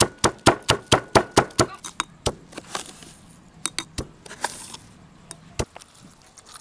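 Stone pestle pounding chillies and garlic in a heavy stone mortar: quick, regular strikes about four to five a second that break off after about a second and a half into scattered single knocks. Twice in between comes a short hiss as granules are poured into the mortar.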